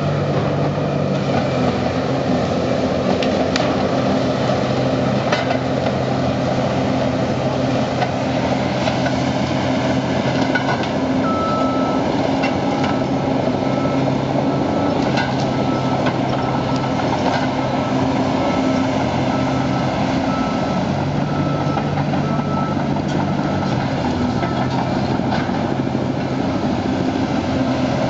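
Komatsu tracked log processor's diesel engine running steadily under hydraulic load as its processing head grips and feeds a log, with scattered knocks and a faint high whine that pulses on and off through the middle.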